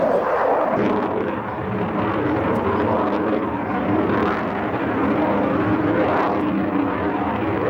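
Fixed-wing aircraft flying overhead, its engine noise a steady rushing drone.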